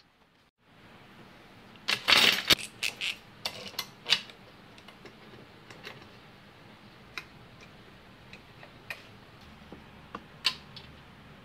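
Metal clanks and clicks of C-clamps and a bar clamp being set and tightened on a cast-iron casting resting on a steel welding table. A quick cluster of knocks about two seconds in is the loudest, followed by scattered single clicks.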